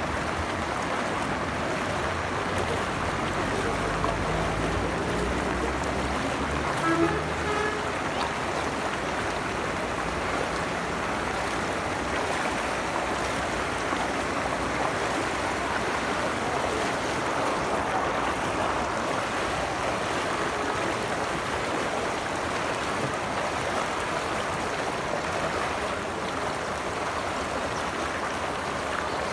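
Floodwater rushing steadily, a constant hiss of fast-flowing water, with a low hum underneath for the first several seconds.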